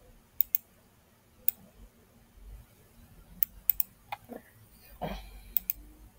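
Computer mouse clicking: about eight sharp clicks, several in quick pairs, with a soft, duller sound about five seconds in.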